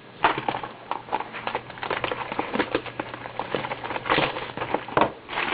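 Card packaging being torn open and handled: a dense, irregular crackling and crinkling, with a few louder rips near the start and around four and five seconds in.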